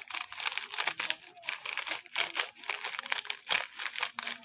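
Plastic Milo powder sachet crinkling as it is handled and squeezed to empty the powder into a mixing bowl: many short, irregular crackles.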